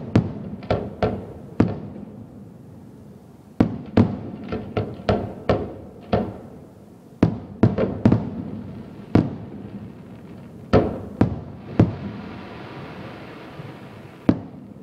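Aerial firework shells bursting in a rapid run of sharp bangs, in quick clusters of several at a time. Near the end a steady hiss takes over for a couple of seconds before one last bang.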